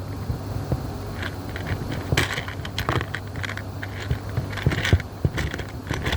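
Small clicks and rattles from handling crimp terminals (spade and bullet connectors), sharpest a little after two seconds in and again near five seconds. A steady low hum runs underneath.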